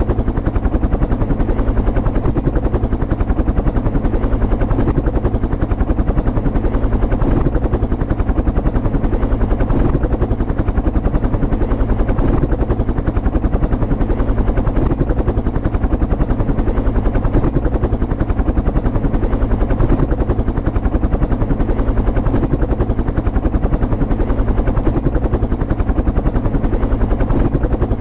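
Helicopter in flight: steady, rapid thudding of the rotor blades with the turbine's running noise underneath, unchanging throughout.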